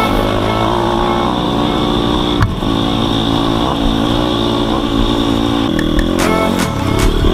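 Dirt bike engine running under throttle, heard from on the bike as it is ridden over rough ground, its note shifting as the throttle changes. Sharp knocks and clatter from the bike over the bumps come a little before the end.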